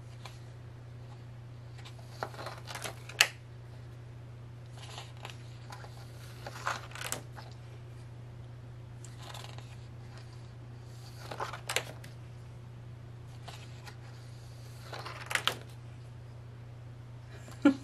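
Pages of a photobook being turned and handled: a string of short papery rustles, one every couple of seconds, over a steady low hum.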